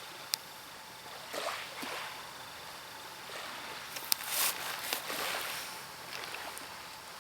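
Sleeping Doberman puppy snoring: several irregular breathy snores, the loudest about four seconds in, with a short click just after the start.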